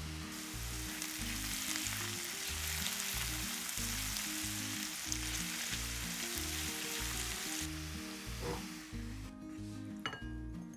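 Diced mushrooms sizzling as they fry in butter in a frying pan, a steady hiss that stops about eight seconds in. Background music with a steady beat runs underneath, and there are a few light clicks near the end.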